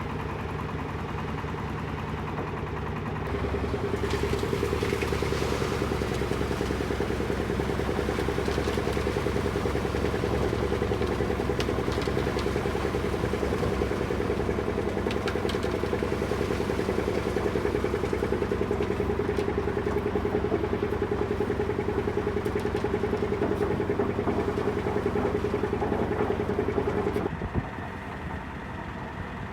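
Concrete mixer truck's diesel engine running steadily. It grows louder with an added steady hum about three seconds in, and drops back shortly before the end.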